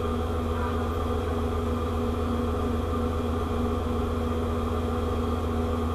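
Steady low hum of a ship's onboard machinery, unchanging, with a few constant tones above the hum.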